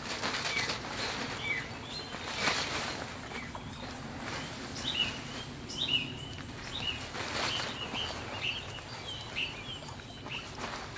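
A large tarp sheet rustling and crinkling in bursts as it is handled and hung over a rope ridgeline. Small birds chirp repeatedly throughout, most densely in the second half.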